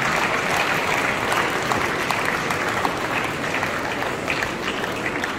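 Large audience applauding, a dense patter of many hands clapping that thins slightly toward the end.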